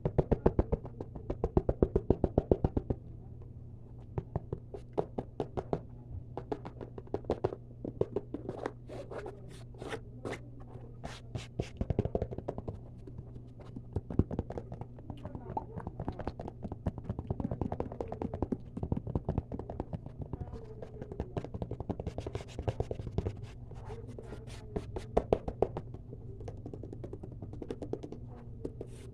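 Fast ASMR tapping: a rapid run of sharp taps for about the first three seconds, then irregular taps and clicks with mouth sounds mixed in.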